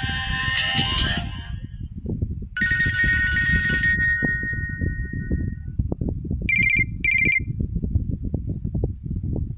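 Nokia Asha 300 ringtones and alert tones playing from the phone's speaker. The previous tune fades out, then a held chime sounds and dies away. About two-thirds of the way in come two short trilling rings, like a telephone bell. A rough low rumble runs underneath.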